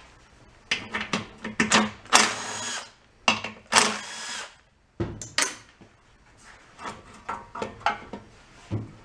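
A cordless drill-driver spins out the screws holding a lawn mower engine's recoil starter cover. It runs in short bursts of motor whine, the two longest about two and four seconds in, with clicks of the screws and the cover being handled in between.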